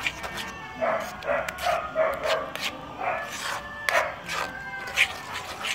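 Metal ladle scraping and stirring thick broth in an aluminium wok, a run of short rasping strokes.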